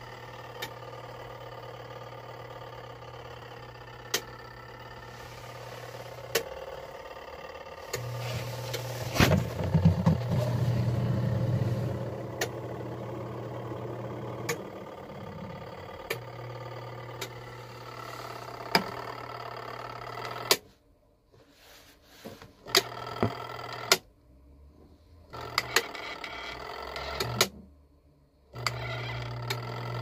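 Compact portable washing machine's electric motor humming steadily, with scattered sharp clicks. It is louder and rougher for a few seconds about a third of the way in. In the last third it cuts out and back in several times as its control dial is turned.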